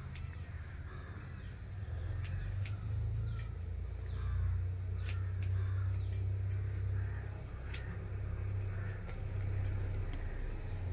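Scattered light metallic clicks and clinks from hairdressing scissors snipping and glass bangles on the wrist as long hair is cut and combed, over a steady low hum.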